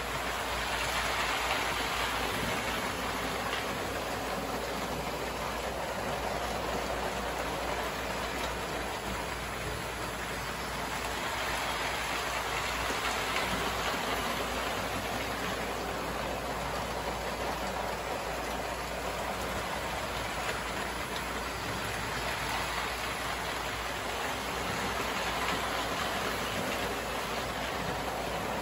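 Postwar American Flyer S-gauge toy trains running on their track. It is a steady rushing rattle of wheels and motors that swells and fades every ten seconds or so as the trains come nearer and move away.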